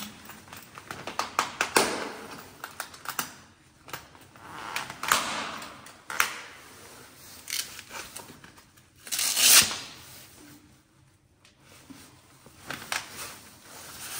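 Plastic ski boots being pulled on and buckled: irregular clicks of the buckles and the rubbing and swishing of the stiff boot shell and winter clothing. The loudest swish comes about nine seconds in.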